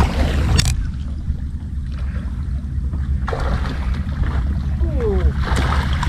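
Wind buffeting an action camera's microphone: a heavy, steady low rumble.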